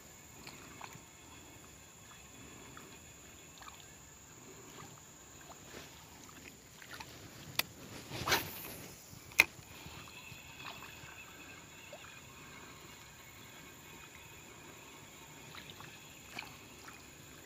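Quiet handling of a spinning rod and reel, with small ticks throughout. About eight seconds in come two sharp clicks with a short rush of noise between them, the loudest moment. After that the reel is faintly heard being wound in.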